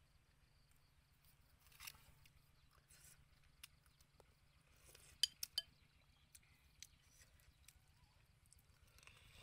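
Near silence broken by a few light clicks; about five seconds in, three quick clinks of a ceramic soup spoon against a ceramic bowl while eating.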